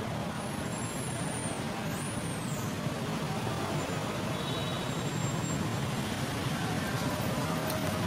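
Steady outdoor background noise with a low rumble, with two faint high gliding whistles about one and two seconds in.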